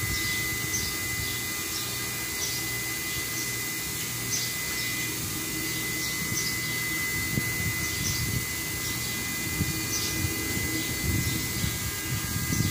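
Steady hum of a running machine with a thin, steady high whine, and faint short high chirps about once a second.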